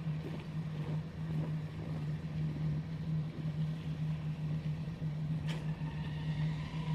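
A steady low hum or drone of unknown origin, heard coming from the sky, holding one pitch over a faint hiss. A single short click comes partway through.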